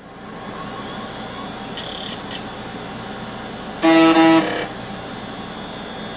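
A Compaq LTE 5250 laptop starting up: a steady whirring hum rises as it powers on. About four seconds in, a loud electronic beep lasts about half a second as it boots.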